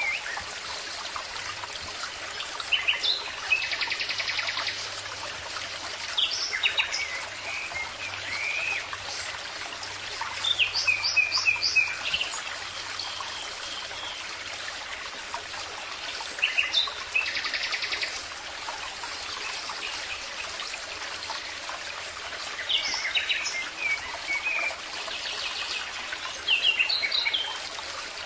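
Birdsong: short phrases of quick chirps and trills, coming every few seconds, over a steady trickle of running water.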